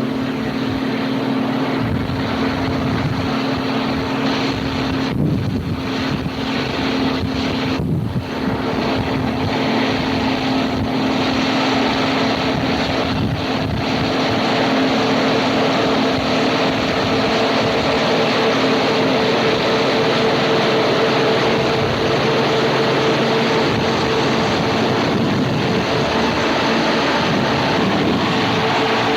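A machine engine running steadily under a dense noise, its hum shifting to a higher pitch about halfway through.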